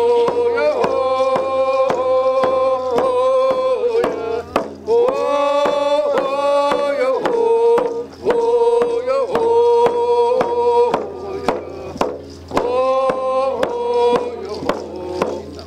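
A man singing a prayer song in long held phrases, beating a steady rhythm on a hand drum with a padded stick. The singing breaks briefly three times while the drumbeat keeps going.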